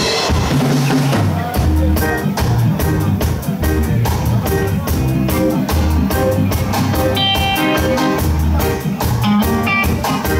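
Live band playing: a drum kit keeping a steady beat under bass and electric guitar, the full band coming in about a second and a half in.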